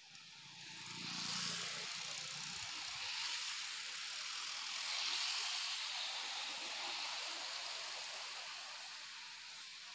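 Road traffic going by: cars and motorcycles passing one after another, their tyre and engine noise swelling and fading several times, with a low engine hum in the first couple of seconds.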